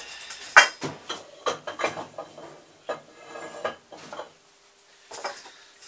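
Steel parts and hand tools clinking and knocking as they are handled on a milling machine table: a dozen or so irregular metallic clinks, some ringing briefly.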